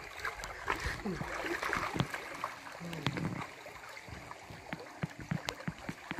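Shallow stream water flowing and trickling over a rocky bed, with scattered splashes and clicks as people wade and set a bamboo fish trap in the current.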